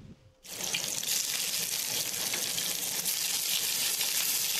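Fish fillets sizzling in hot oil in a frying pan: a steady, dense hiss that starts suddenly about half a second in.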